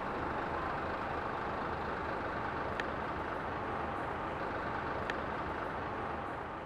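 Steady noise of buses and traffic, heard from inside a parked vehicle, with two faint clicks a couple of seconds apart. It fades away near the end.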